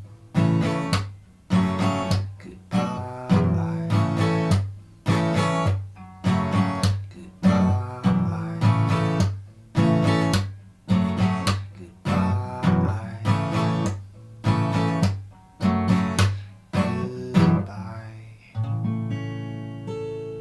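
Acoustic guitar strummed in a steady rhythm of chords, each struck sharply and dying away, about one every three-quarters of a second; near the end a final chord is struck and left to ring out and fade.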